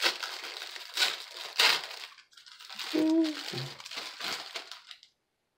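A thin clear plastic bag crinkling as it is pulled open by hand and the fabric face mask inside is drawn out, with two louder crackles about a second and a second and a half in. A brief low vocal sound comes about three seconds in, and the rustling stops shortly before the end.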